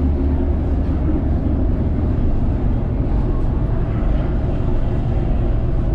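Steady low rumble of a ro-ro ferry under way, heard on its open passenger deck.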